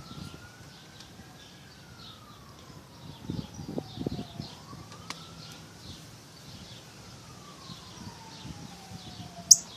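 A faint siren wailing slowly, its pitch climbing and falling twice. A short, sharp high-pitched chirp sounds near the end.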